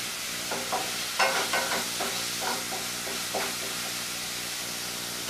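Onion, ginger and garlic spice paste frying in hot oil in a kadai with a steady sizzle, while a spatula stirs it a few times in the first half. The masala is being fried until the oil separates from it.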